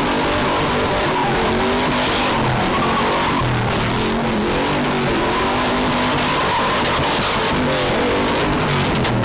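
Car engines revving hard with continuous tyre squeal as cars drift and spin in a pit.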